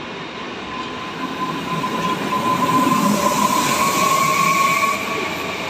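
Koleje Mazowieckie electric multiple unit moving past the platform: a rumble of the cars with a high whine that climbs slightly in pitch from about a second in, and a second, higher whine joining later. The sound grows louder toward the middle and eases near the end.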